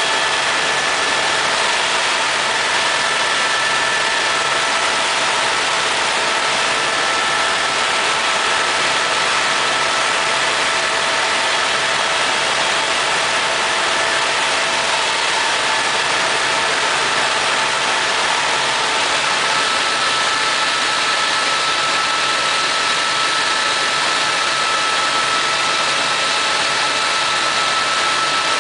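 Helicopter in flight heard from inside the cabin: a steady rush of engine and rotor noise with several constant whining tones over it.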